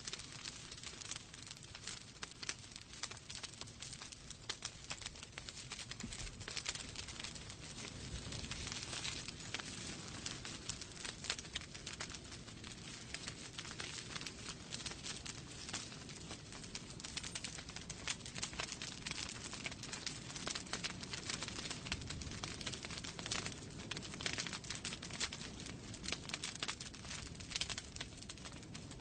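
Wood fire burning in a fireplace, crackling steadily with many small sharp pops over a low rumble of the flames.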